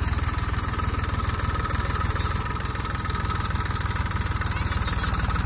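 Diesel engine of a TAFE farm tractor running steadily at low revs while pulling a trolley heaped with harvested crop slowly across a field, with a steady high whine above the engine's low pulse.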